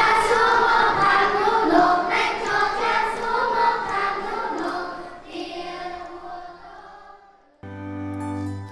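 A group of children singing together, fading away about seven seconds in. After a short break, a steady held musical note starts near the end.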